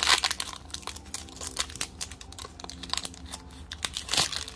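Foil wrapper of a Pokémon TCG booster pack crinkling and tearing as it is ripped open by hand, with many small crackles, a loud rip at the start and another near the end.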